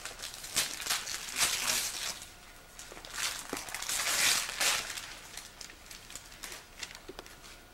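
Wrapping paper being torn and crumpled as presents are unwrapped, in irregular rustling bursts, the longest about three to four and a half seconds in.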